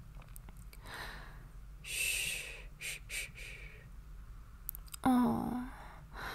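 A woman breathing close to the microphone: soft breaths, a sighing exhale about two seconds in, then a short voiced sound a little after five seconds.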